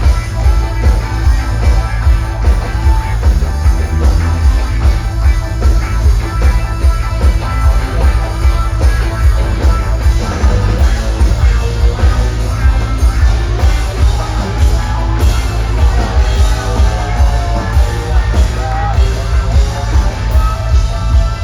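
A live band playing loud rock music with a heavy, booming bass and a steady, even beat, with a singing voice over it.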